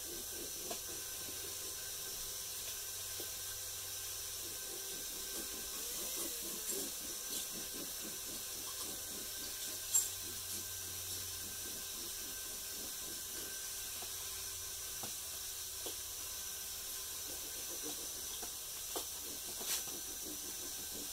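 Steady hiss with faint, irregular scraping and rubbing as epoxy-wetted peel ply is worked down onto a plywood float panel, and a sharp click about ten seconds in.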